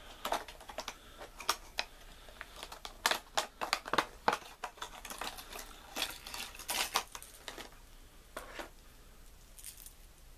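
Clear plastic lure packaging being pried and worked open by hand, giving irregular clicks and crackles that die away near the end.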